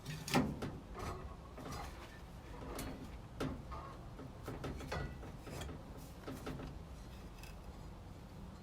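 Light, irregular clicks, taps and scrapes from hand work on a piece of wood as material is cut away from its middle.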